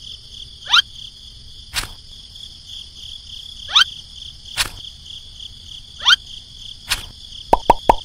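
Cartoon-style pop sound effects: three rising bloops a couple of seconds apart, each followed by a sharp click, then a quick run of about seven short pops near the end. Under them runs a steady, high-pitched insect-chirping ambience.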